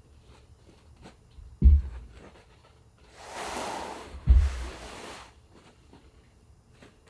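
Two dull, heavy knocks about two and a half seconds apart, with a rustling hiss lasting about two seconds between them. These are handling sounds from upholstery work on a wooden chair.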